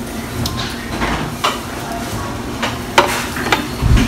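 Restaurant background noise with several sharp clinks of dishes and utensils, the loudest about three seconds in.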